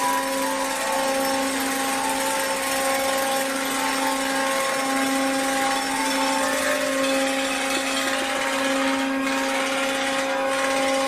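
A steady droning hum holding one low pitch with overtones above it, over a constant hiss, unchanging throughout.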